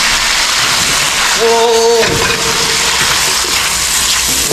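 Beef cartilage sizzling loudly in hot oil and sauce in a pot, a steady frying hiss. A short, steady-pitched tone sounds briefly about a second and a half in.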